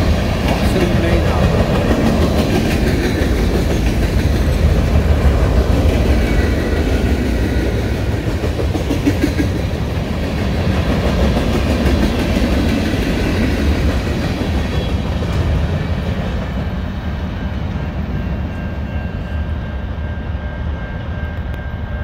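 Freight train cars rolling past: a steady low rumble of steel wheels on rail with repeated clacks over the rail joints. It eases off and dulls in the last several seconds as the cars draw away.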